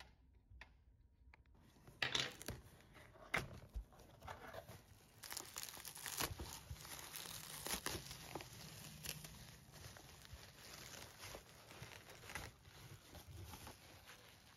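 Crinkling and tearing of wrapping material being handled, with a couple of sharp knocks early on and then steady rustling.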